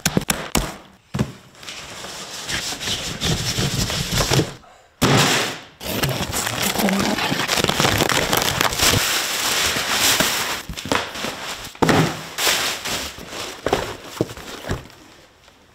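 Soft-top shipping packaging being opened. A few sharp clicks near the start as the box's plastic straps are cut. Then long stretches of crinkling plastic bag and cardboard rustle as the top is pulled out, thinning out near the end.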